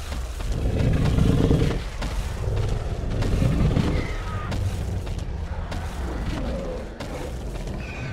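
Sound design for an animated large dinosaur over music: two deep booming bursts in the first half, with short high gliding cries later.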